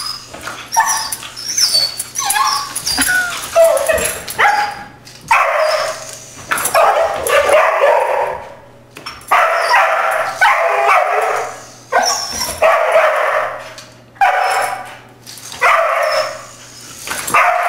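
A dog barking and yelping over and over, worked up by a yo-yo bobbing in front of it. Short high yips come in the first few seconds, then a run of long, loud barks about one a second.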